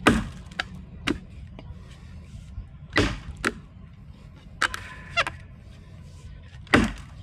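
A vintage felling axe chopping into a wooden log at a knot: three heavy blows about three and a half seconds apart, with lighter knocks between.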